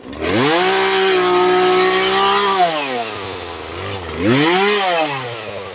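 Two-stroke chainsaw revved up fast and held at high speed for about two seconds, then dropping back, revved once more about four seconds in and settling down toward idle.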